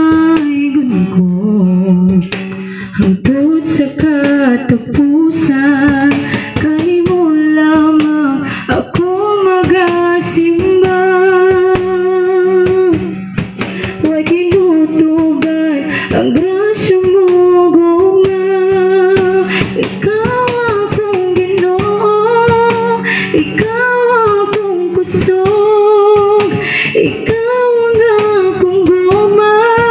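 A woman singing a Cebuano worship song, with vibrato on held notes, accompanied by a nylon-string acoustic guitar.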